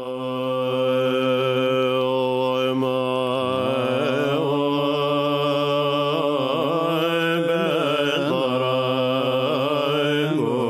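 Mantra chanting: voices holding long sung notes in a continuous drone, steady at first and then wavering slowly in pitch.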